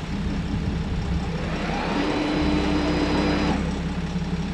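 Boat engine idling with a steady low hum. About two seconds in, a thruster motor whines up to a steady pitch, runs for about a second and a half, and cuts off.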